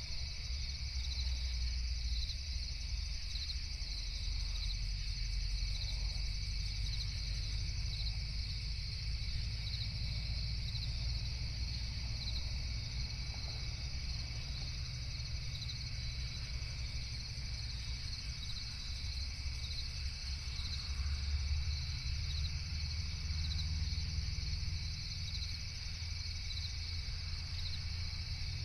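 Crickets chirping steadily in a night chorus, a continuous high pulsing trill, over a low rumble that swells and eases.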